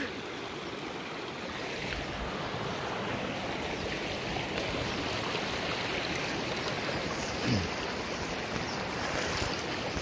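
Steady rush of flowing water, an even noise that swells slightly about two seconds in. About seven and a half seconds in, a brief low sound drops in pitch.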